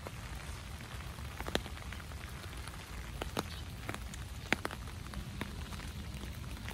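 Steady rain falling on the park, an even patter, with now and then the sharp tick of a single drop landing close by.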